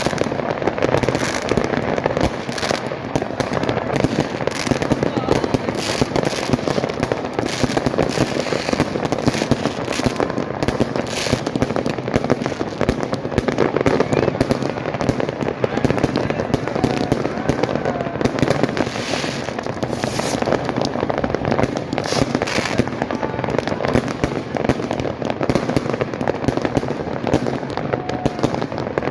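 New Year fireworks and firecrackers going off all around without pause, a dense, continuous crackle of pops and bangs.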